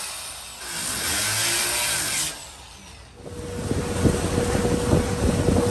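Two bursts of a handheld power tool worked against the wooden hull of a gondola, each about a second and a half long. After a short lull, a motorboat's engine runs with a steady hum and wind rumbling on the microphone.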